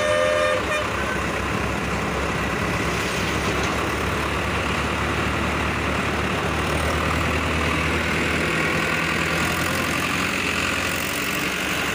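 Farmtrac tractor diesel engine running steadily as the tractor drives along the road. A vehicle horn's blast cuts off just under a second in.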